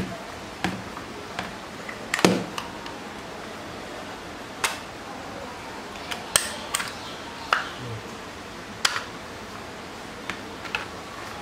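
Plastic case of a clamp meter being handled and opened: irregular clicks and knocks of plastic parts, a dozen or so, the loudest about two seconds in.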